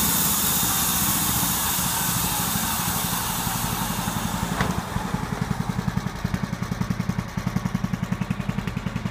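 Norwood bandsaw mill sawing black walnut: the band blade hisses through the log over the engine. About halfway, after a sharp click, the cutting noise dies away as the cut finishes, leaving the mill's small engine running with a steady pulsing idle.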